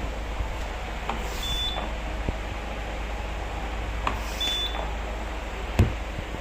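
Transport ventilator cycling about once every three seconds: each breath brings a click, a brief rush of air and a short high tone, twice here, over a steady low hum. A single sharp knock near the end is the loudest sound.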